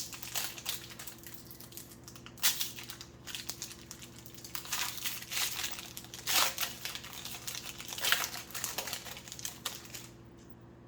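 A trading-card pack wrapper from an Upper Deck Marvel Annual hobby box being crinkled and torn open by hand, in irregular bursts of crackling that stop near the end.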